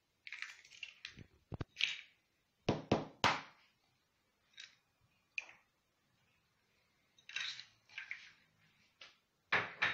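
Eggs being cracked one after another into a plastic bowl: sharp taps and cracks of eggshell, with short crackles of the shells breaking apart, separated by short quiet gaps.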